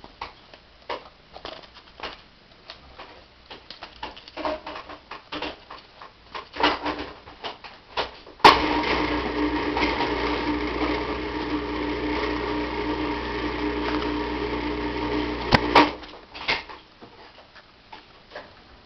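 Soft scattered rustles and taps, then a steady machine hum that starts suddenly with a click about eight and a half seconds in, runs for about seven seconds, and stops with a couple of sharp clicks.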